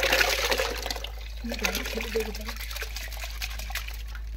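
Soaked rice tipped from a container into a large pot of hot water, splashing and pouring. It is loudest in the first second or so, then thins to a trickle.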